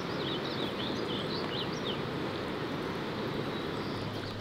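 Steady rush of falling water, with small birds chirping in short high notes over it during the first couple of seconds.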